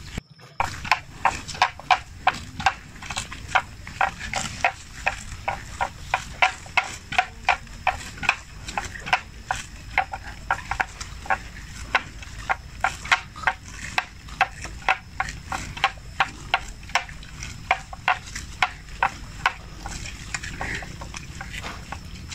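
Water buffalo grazing close by, tearing off mouthfuls of wet grass in a steady rhythm of about two to three crisp rips a second. The rips die away near the end.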